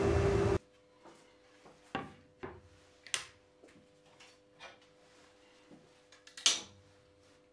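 Table saw running with a steady hum, cut off abruptly about half a second in; then light separate taps and clicks of a plywood piece and a wooden folding rule being handled on the saw table, the loudest near the end.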